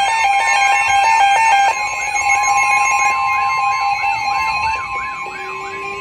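Several weather alert radios sounding their alarms at once. There is a steady high tone like the 1050 Hz NOAA Weather Radio alert tone, a warbling siren tone sweeping up and down about three times a second, and repeated beeps. The beeps drop out about two seconds in and the steady tone cuts off near the end, as the radios are silenced one after another.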